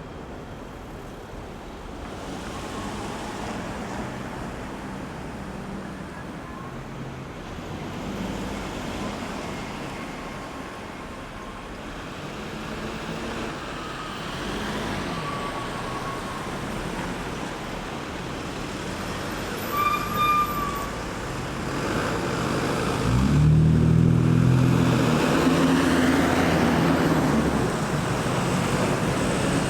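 Road traffic passing a roundabout: a steady wash of tyre noise and engine hum as vehicles go by. There are two short high-pitched beeps about two-thirds of the way through. Near the end a heavy vehicle's engine passes close, the loudest sound here.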